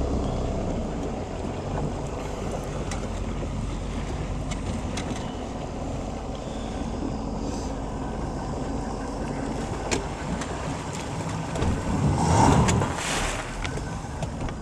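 Ski boat's engine running steadily under a wash of water and wind noise, with a louder rush of noise about twelve seconds in.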